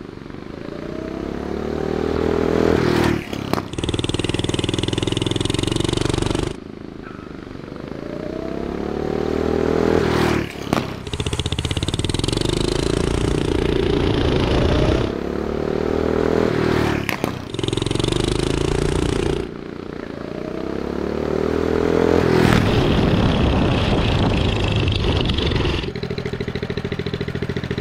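Turbocharged, fuel-injected Predator 420cc single-cylinder engine on a drift trike making full-throttle acceleration runs under boost. Four times its pitch climbs as it accelerates, breaks off briefly, then holds at high revs. It settles lower near the end.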